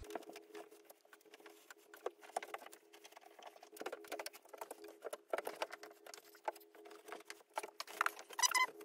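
Soft rustling and scratchy crackling of insulation batts being pushed and tucked between ceiling joists, with irregular small crackles throughout. A steady hum runs underneath, and a brief squeak near the end is the loudest sound.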